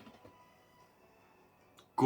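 Very quiet room tone with a couple of faint clicks near the end.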